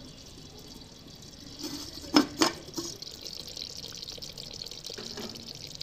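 Clay lid lifted off an earthen handi, with two sharp clinks of clay on clay about two seconds in. Then the nearly cooked chicken curry inside simmers with a steady hiss.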